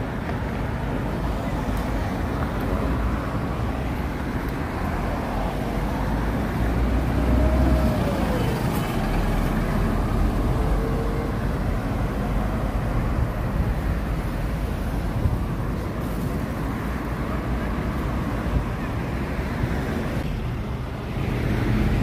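Steady city road traffic: cars and buses running past, with engine rumble and tyre noise. A short whine rises and falls in pitch about eight seconds in, and near the end a city bus comes in close and the noise grows louder.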